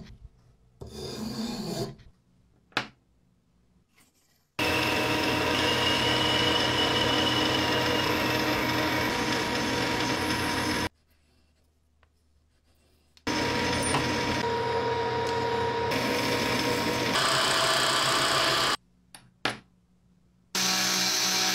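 Metalworking machines running in several separate stretches that start and stop abruptly, among them a lathe turning a steel shaft, a steady whirring with metal cutting noise. Between the stretches the sound drops to near silence, with a few sharp clicks.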